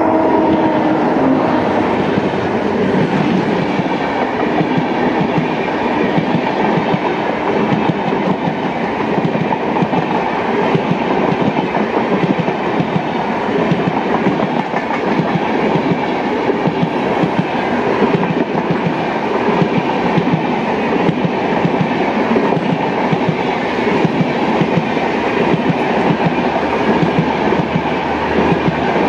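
Rajdhani Express passenger coaches rushing past at speed close by: a loud, steady rumble of wheels on rail with rapid clickety-clack as the wheels cross the rail joints.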